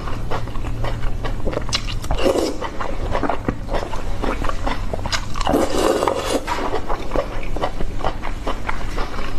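Close-miked wet chewing and mouth smacking of a person eating octopus, with quick irregular clicks and a couple of brief louder smacking spells.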